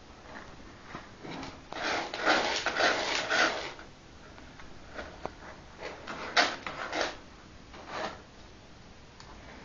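Cat digging and scratching in granular litter in a plastic litter tray: bursts of gritty scraping, the longest and loudest run about two to four seconds in, then shorter spurts between five and eight seconds.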